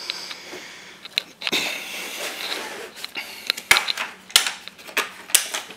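Hard plastic tool case being handled and shifted on the bench, with rustling knocks, then several sharp clicks in the last two seconds as its latches are snapped open.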